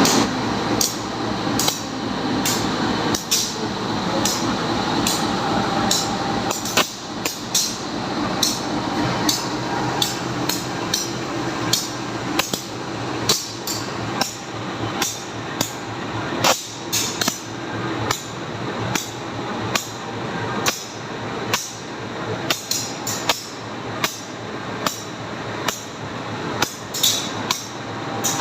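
Railway locomotive running with a regular sharp metallic knock, about one and a half to two a second, over a steady hum; this knock is the strange sound the locomotive is making.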